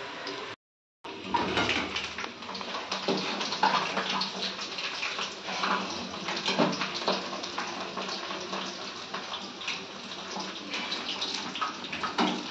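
Onion bhaji batter deep-frying in hot oil in a steel kadhai, a steady sizzle full of small crackles and pops. The sound breaks off for a moment about half a second in.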